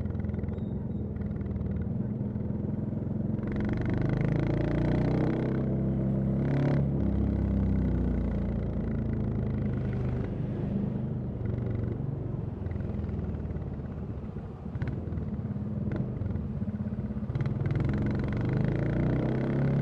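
Royal Enfield Classic 350's single-cylinder engine and exhaust running while the bike is ridden, with a steady low note that swells as it accelerates about four seconds in and again near the end.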